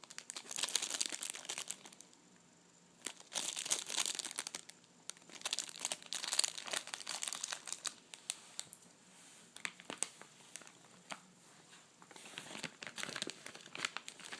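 Plastic packaging crinkling as it is handled, in several bursts of a second or two with a few scattered light clicks in between.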